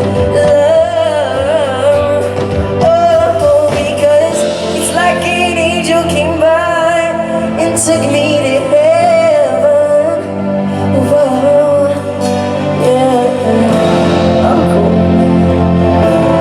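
Pop song performed live on stage through the PA during a sound check: a male pop vocalist singing a wavering, melismatic line over backing band accompaniment with steady low notes and cymbal hits.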